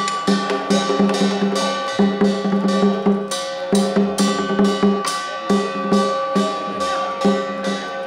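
Percussion-driven music: drum strokes in a steady beat of several strikes a second, under sustained ringing tones.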